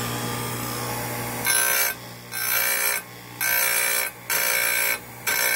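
Electric chain grinder running with a steady motor hum. From about a second and a half in, the grinding wheel is lowered onto a chipper chain's cutter tooth five times in quick succession, about once a second, each touch giving a high-pitched grinding whine.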